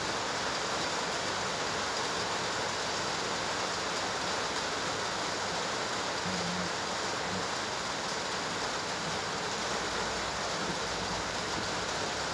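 Steady, even rushing background noise that keeps on unchanged, with a brief faint low hum about six seconds in.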